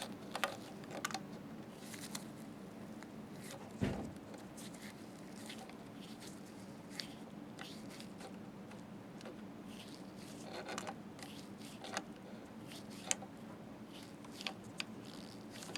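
Vice grips clamping and prying on a steel chinrest bracket, crimping its lip closed over the cable: scattered light metal clicks and small knocks, the loudest a knock about four seconds in, over a faint steady hum.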